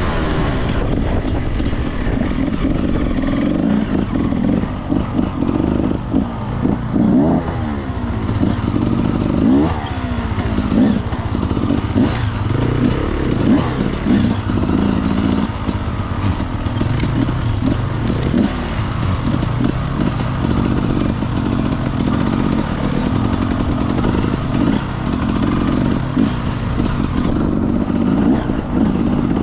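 Enduro motorcycle engine running while the bike is ridden, its pitch rising and falling again and again as it revs up and eases off.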